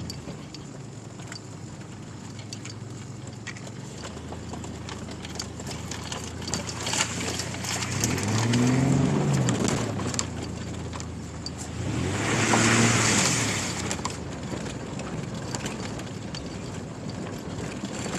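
2002 Chevy Blazer's 4.3-litre V6 engine running steadily off-road, revving up and back down twice, about eight and twelve seconds in, the second rev joined by a rush of noise.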